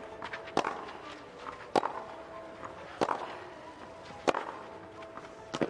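Tennis rally on a clay court: racket strings striking the ball in a steady back-and-forth, five sharp hits about a second and a quarter apart, with softer knocks of bounces and footsteps between them.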